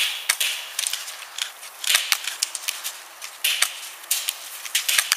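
Scattered airsoft gunfire: irregular sharp pops and clicks, several with a short hissing burst.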